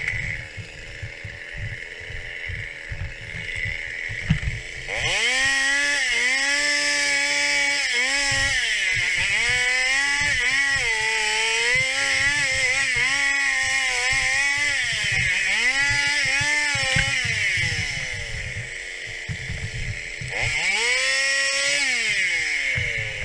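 Stihl 021 two-stroke chainsaw idling, then revved up about five seconds in and held at high revs, its pitch dipping and recovering again and again under load as it cuts through branches. It drops back to idle, revs up once more briefly near the end, then falls back.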